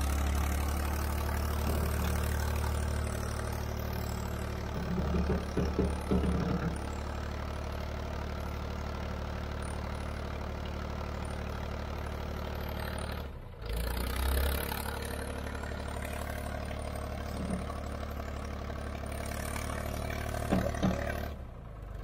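The diesel engine of an old Ford 4500 backhoe, revived after sitting unused for years, running steadily at idle. Clattering comes in bursts about five seconds in and again near the end.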